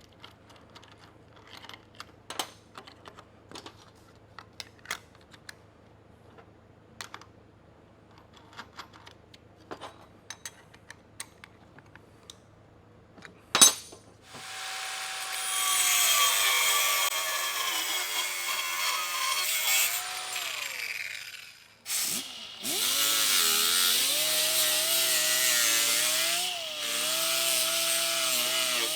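Scattered clicks and knocks of metal and tools being handled, with one sharp clank, then an electric grinder cutting or grinding steel in two long runs, its whine dipping and wavering in pitch as it bears into the metal.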